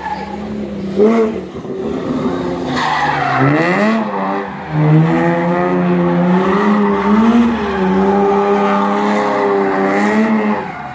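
Rally car engine revving hard and held at high revs, its pitch wavering as the car slides sideways, with tyre squeal over it. About three to four seconds in the revs drop and climb back. The sound stops abruptly near the end.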